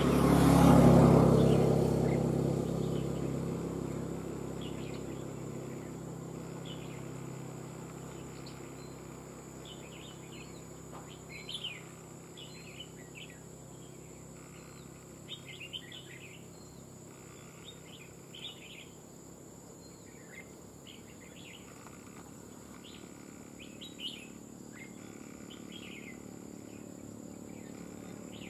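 Red-whiskered bulbuls calling with short, sharp chirps scattered throughout. In the first few seconds a passing vehicle swells and fades away.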